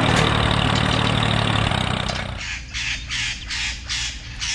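A steady engine-like rumble and hiss that stops about two seconds in, followed by a run of crows cawing, about two to three caws a second.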